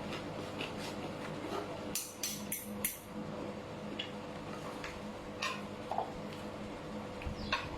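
Eating sounds at a meal: short sharp clicks and smacks, four in quick succession about two seconds in and a few more scattered later, over a steady low hum.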